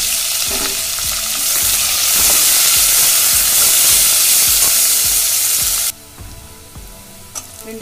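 Sliced onions sizzling in hot oil in an aluminium pressure cooker, stirred with a metal slotted spoon that knocks and scrapes against the pot. About six seconds in the loud sizzle cuts off abruptly, leaving a much quieter sizzle with a few light clicks.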